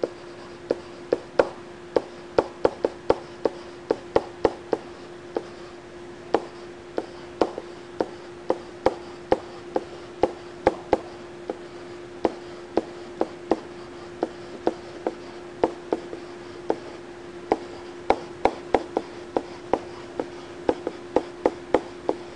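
Stylus tapping and clicking on a pen tablet as words are handwritten: irregular sharp taps, a few a second, with a short sparser stretch in the middle. A steady hum sits beneath them.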